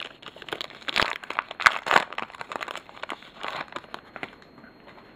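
A baseball card pack's wrapper being torn open and crinkled by hand: irregular crinkling and crackling for about four seconds, dying away near the end.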